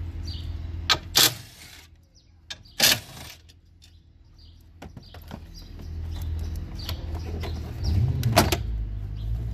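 Cordless electric ratchet spinning in two short bursts, about a second and a half apart, backing out the engine-cover fasteners. After them come clicks and handling knocks, with a heavier clunk near the end as the tool goes down on the plastic engine cover, all over a steady low hum.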